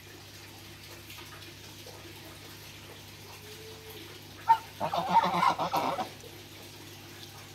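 A goose dabbling its bill in a tub of water: a sharp splash about halfway through, then a second or so of splashing. A faint steady low hum runs underneath.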